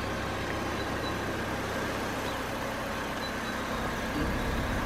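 Car engine idling with a steady hiss over it; the low hum gets stronger about four seconds in.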